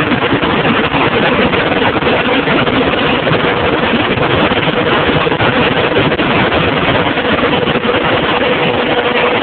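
John Deere 7220's 6.8L PowerTech six-cylinder diesel engine running with a misfire (a skip), under a steady whine. The misfire was traced to a faulty injection pump after the injectors and compression checked good.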